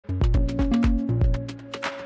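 Music with a fast, steady beat of deep drum thumps and ticking high cymbal hits over held low tones.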